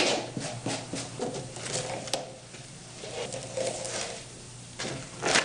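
A small blade scraping paint and a decal off the face of a satellite dish antenna, in quick scratchy strokes that thin out into faint scraping and handling. A couple of sharp, louder scrapes or knocks come near the end.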